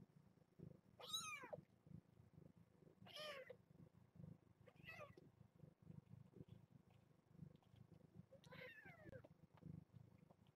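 Young kittens mewing faintly: four short, high-pitched mews a couple of seconds apart, most sliding down in pitch.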